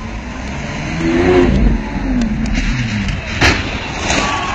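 Supercar engine revving hard as the car accelerates along the street, its pitch rising and falling. A single sharp crack sounds about three and a half seconds in.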